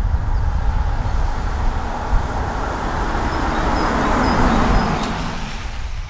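2013 Jaguar XF 2.2 D, with its four-cylinder diesel, driving past at speed. The engine and tyre noise swells to a peak about four seconds in as the car goes by, then fades away.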